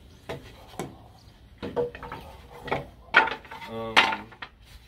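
Pieces of redwood siding knocking together as they are handled: a series of sharp wooden clacks.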